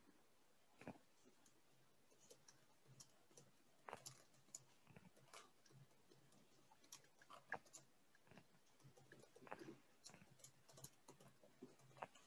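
Near silence with faint, irregular clicks and taps of a computer keyboard being typed on.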